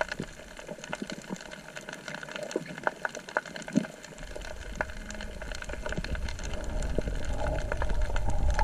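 Underwater ambience: scattered sharp clicks and crackles over a steady rush of water. A low rumble of water movement comes in about halfway through and grows louder toward the end.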